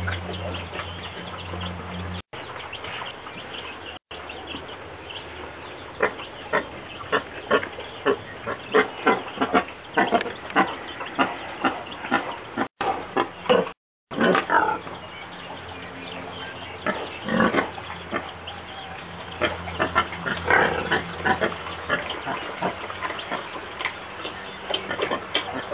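Penned male wild boar grunting in a quick series of short, sharp grunts while it moves along and noses at the pen rails.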